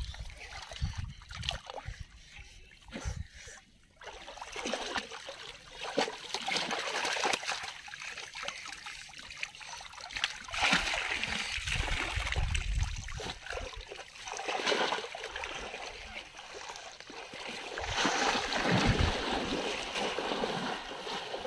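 Shallow floodwater splashing and sloshing as people wade through it, coming in irregular surges. The splashing is loudest about ten seconds in and again near the end.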